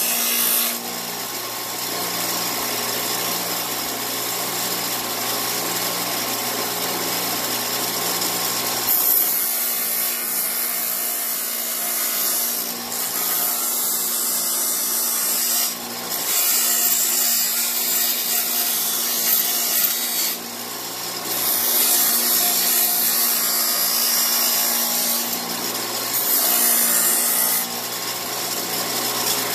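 Bench grinder running, with a polycarbonate plastic mirror blank pressed against the spinning wheel to grind its edge down. A steady motor hum sits under a loud grinding hiss that swells and eases every few seconds as the piece is pressed on and worked around.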